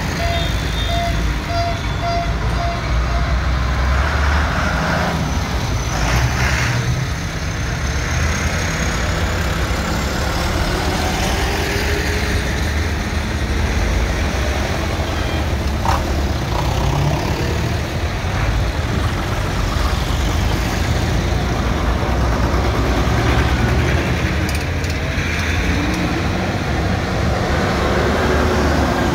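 Diesel tractor engines running as a line of farm tractors, old and new, drives past one after another; the low rumble swells and eases as each one goes by. A short run of beeps sounds in the first few seconds.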